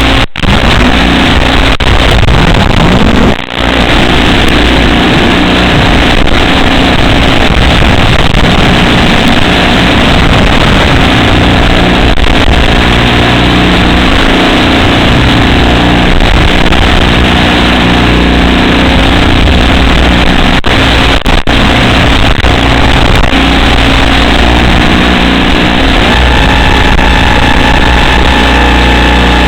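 FPV quadcopter drone's motors and propellers running loud and continuously, the pitch shifting with throttle, with brief dips about half a second and three and a half seconds in. A steadier whine sets in near the end.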